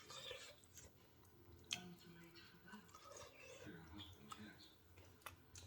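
A person faintly chewing food, with a couple of sharp clicks, one before two seconds in and one near the end.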